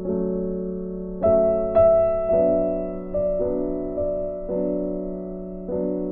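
Background piano music: gentle sustained chords with new notes struck about once a second, each fading away.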